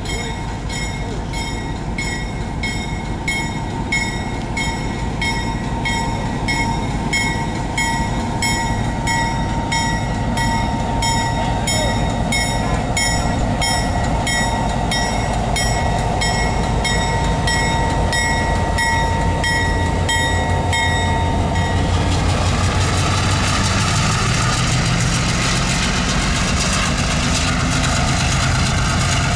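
A bell rings steadily about twice a second over the diesel engine of an EMD SW1500 switcher locomotive. About three-quarters of the way through, the bell stops and the engine's low running grows louder as the locomotive passes close.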